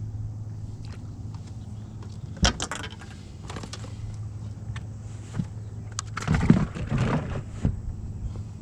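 A steady low mechanical hum with scattered rattling and knocking on top of it, loudest about two and a half seconds in and again from about six to nearly eight seconds in.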